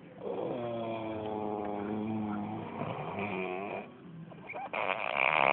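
A sleeping man snoring: one long pitched snore lasting about three and a half seconds, then after a short gap a shorter, louder, noisier burst of breath near the end.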